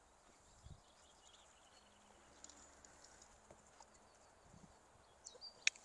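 Near silence with faint bird chirps and a couple of faint soft thuds. Near the end comes one sharp click from a dog-training clicker that is sticking.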